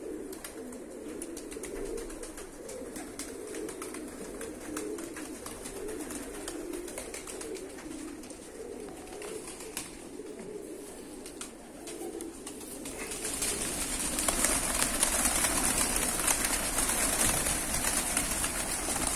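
A flock of fighting pigeons cooing, with scattered light clicks. About two-thirds through, the flock takes off and many wings flap loudly.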